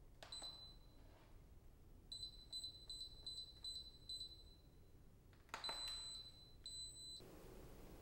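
Instant Pot electric pressure cooker's control panel beeping as its buttons and dial are pressed to set it: one short beep, then a quick run of about seven short beeps, then two longer beeps near the end, with faint clicks of the presses.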